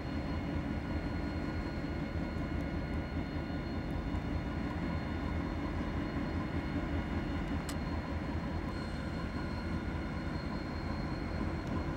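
Diesel-electric locomotives idling: a steady low rumble with faint steady whines above it, and a single sharp click about eight seconds in.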